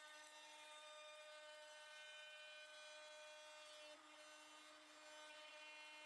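A trim router fitted with a rabbeting bit runs with a faint, steady whine as it cuts a rabbet along the back of a walnut door frame, the whine dipping briefly about four seconds in.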